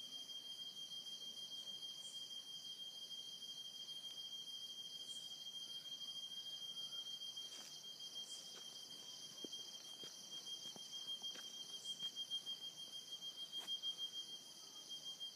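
Nocturnal cicada singing: one continuous high-pitched tone, its loudness swelling in quick pulses in the later seconds.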